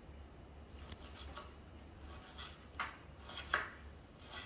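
Kitchen knife chopping red onion on a plastic chopping board: a handful of soft, irregular knife strokes against the board, over a low steady hum.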